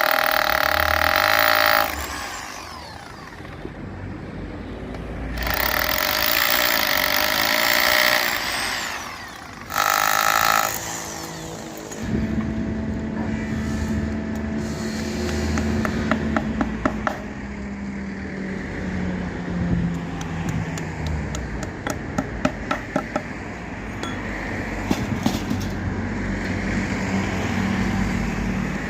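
Metalworking power tool run on iron in three loud bursts. After that, a quieter stretch of steady hum with runs of sharp clicks and taps.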